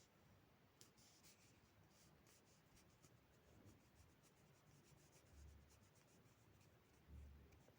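Near silence: faint room tone with many soft, light ticks and two dull low thuds, one past the middle and one near the end.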